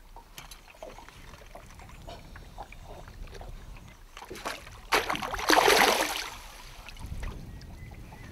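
A hooked rainbow trout being brought to the net at the side of a boat: scattered small ticks and drips, then one loud water splash about five seconds in that lasts just over a second.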